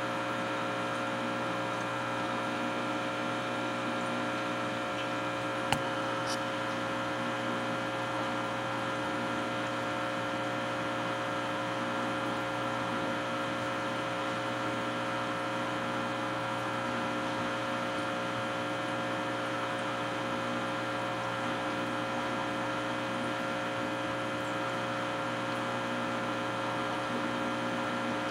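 Aquarium pump running with a steady electric hum made of several held tones. One sharp click about six seconds in.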